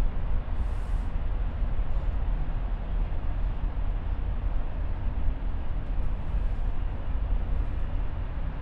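Steady low rumble and hum of the Roosevelt Island Tram, an aerial tramway cabin, in motion.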